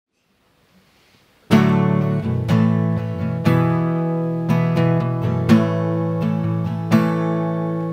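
Acoustic guitar strumming the opening chords of a song, starting suddenly about a second and a half in after near silence.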